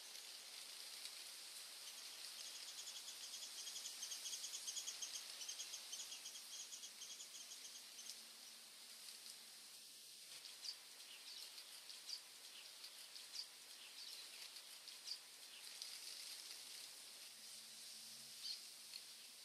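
Faint forest ambience under a steady high hiss. A rapid high trill runs for several seconds in the first half, then short high bird chirps come scattered through the rest.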